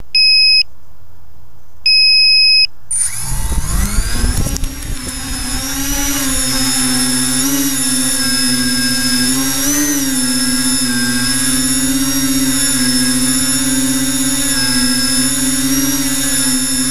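Two loud electronic beeps, the second about two seconds in. Then an FPV tricopter's electric motors and propellers spin up in a rising whine about three seconds in and settle into a steady whine that wavers slightly in pitch as the throttle changes in flight.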